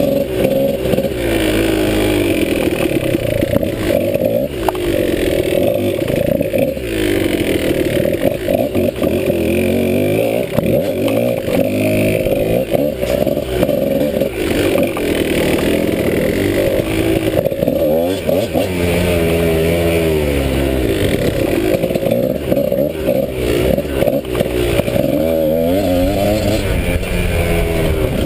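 Dirt bike engine revving up and dropping back over and over as the rider works the throttle through tight woods, the pitch rising and falling every second or two.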